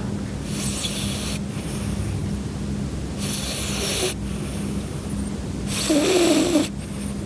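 Mame shiba puppy snoring in its sleep: three hissy breaths about two and a half seconds apart, the last and loudest with a low wavering snore in it.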